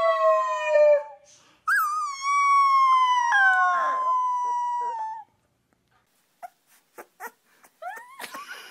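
A young puppy howling: a high howl tails off about a second in, then a second long howl rises, holds and slowly falls for about three and a half seconds, with a crack in pitch partway. Near the end come a few short, faint whimpers.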